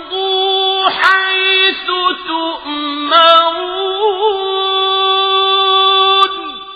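A man's voice reciting the Quran in melodic tajweed style, holding long high notes with a small wavering turn about four seconds in. Shortly before the end the note falls away, leaving a fading echo.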